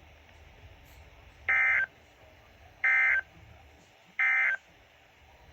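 Three short bursts of Emergency Alert System SAME digital data tones, each about a third of a second long and about a second and a half apart. Their shortness fits the end-of-message code that closes a warning broadcast.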